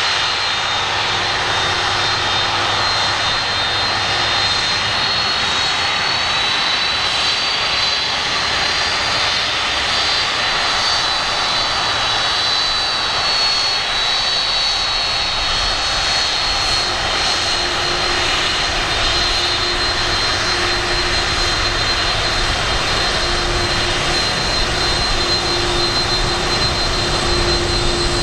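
Lockheed C-5M Super Galaxy's four General Electric F138 turbofan engines running on the ground. It is a steady, loud jet whine with high whistling tones over a dense rush.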